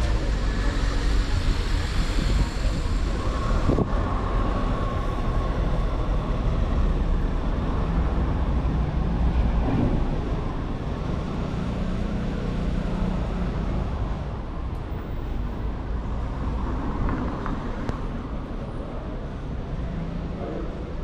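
City street traffic: cars passing with a steady low rumble of engines and tyres, louder in the first half and easing off after about ten seconds.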